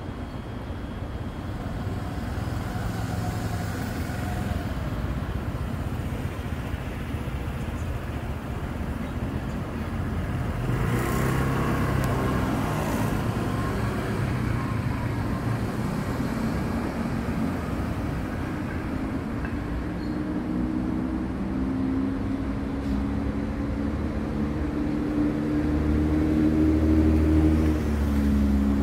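Road traffic: a steady low rumble of vehicles, with a noisy swell as a vehicle passes about a third of the way in, and an engine's hum growing louder over the last third.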